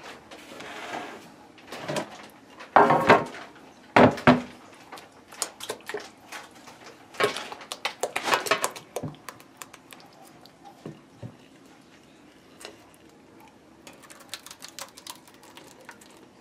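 Kitchenware handling: a glass mixing bowl and metal baking pan clunk loudly on a wooden board a few times, then a spatula scrapes and clicks against the bowl as thick, wet grated-cassava batter is pushed out into the pan.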